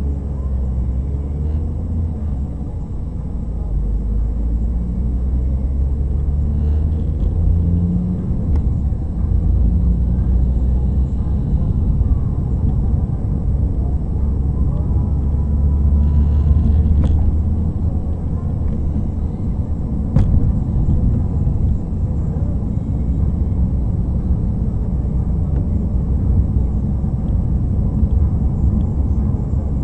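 Low, steady rumble of a car driving, picked up from inside the cabin by a windscreen dash cam, with a couple of faint ticks about halfway through.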